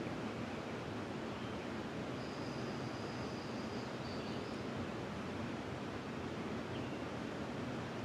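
Steady rushing of a flowing river. About two seconds in, a bird gives one faint, thin, high whistle lasting about two seconds, with a couple of tiny chirps around it.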